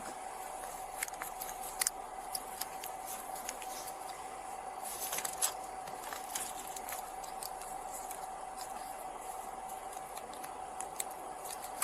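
Steady cabin noise inside a patrol car, with a constant mid-pitched hum, and scattered light clicks and rustles, a small cluster of them about five seconds in.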